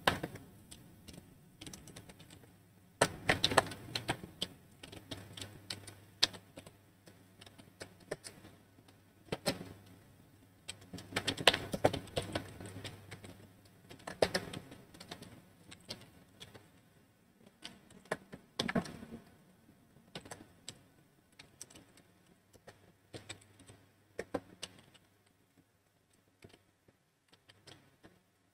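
Typing on a computer keyboard: clusters of key clicks in irregular bursts with short pauses between them.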